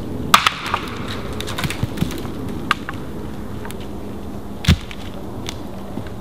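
Dry wooden poles and deadfall branches being handled and set down: sharp knocks and cracks of wood on wood and snapping twigs, the loudest about a third of a second in, then a single heavy thud of a log landing about three-quarters through.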